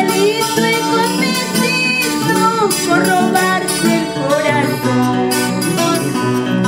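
Andean folk song from Peru's Yauyos region, with acoustic guitar strumming and a wavering melody sung over it.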